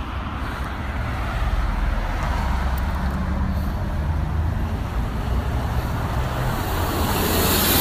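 Road traffic passing on a wide multi-lane street, a steady wash of engines and tyre noise, with a semi truck going by and the noise growing louder near the end.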